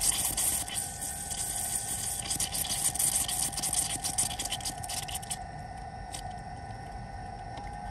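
AirDog 150 gph electric lift pump running with the key on and the engine off, a steady whine, while fuel mixed with air spits and hisses out as the system is primed and purged of air. The spitting stops sharply about five seconds in, leaving the pump's steady whine.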